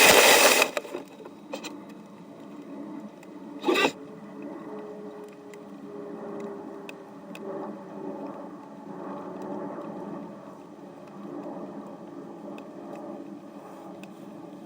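Model sailplane's fuselage scraping along the ground and coming to a stop, heard from inside the hull, with a single knock about four seconds in. After that only a low rumble with scattered light ticks remains.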